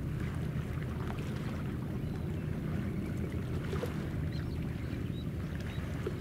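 Steady low rumble of a ship's engines running, with a few faint high chirps over it.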